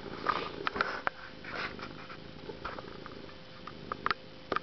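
Domestic cat purring steadily, with a few sharp clicks and short breathy noises over the purr.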